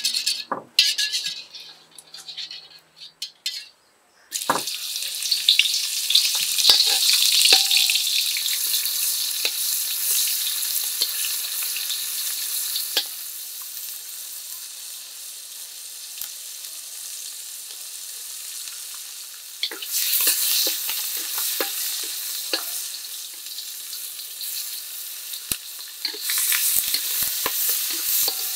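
Salted fish frying in hot oil in a steel wok: a loud sizzle starts suddenly about four seconds in and slowly dies down. A second burst of sizzling comes about twenty seconds in and another near the end as sliced chillies go in, with a metal spatula scraping and clicking against the wok as it stirs.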